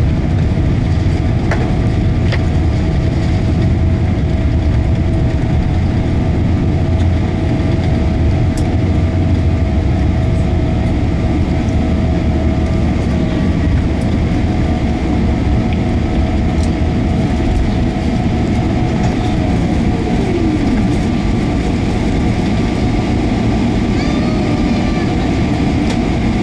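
Steady cabin rumble of a Boeing 777-300ER taxiing after landing, from its GE90-115B engines and wheels rolling on the taxiway. A faint whine fades out about halfway through, and a tone slides down in pitch about three-quarters of the way in.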